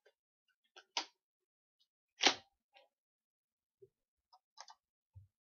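A few faint, irregular clicks and taps, with one louder knock about two seconds in.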